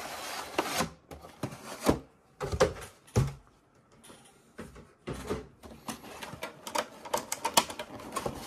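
Stiff clear plastic packaging tray and its cardboard sleeve being handled: a short rush of sliding card at the start, then irregular clicks, taps and crinkles of the plastic.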